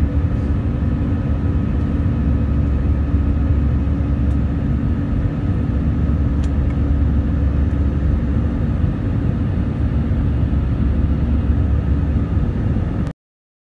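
Jet airliner cabin noise in the climb after takeoff: a steady low rumble of engines and airflow with a constant hum over it. It cuts off abruptly near the end.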